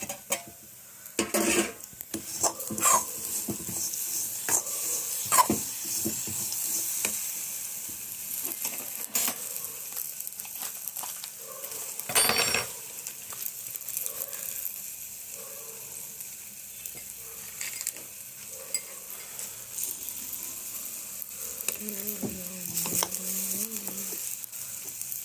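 Dry fruits frying in desi ghee in a kadhai, with a steady sizzle while a spoon stirs and scrapes through them, knocking against the pan now and then. The loudest knock is a clatter about halfway through.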